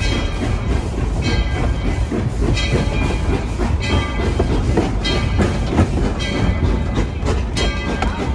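Narrow-gauge steam train (locomotive No. 12) moving slowly, heard from a flatcar it is pulling. There is a steady rumble of wheels on rail, with a regular bright beat about every second and a quarter.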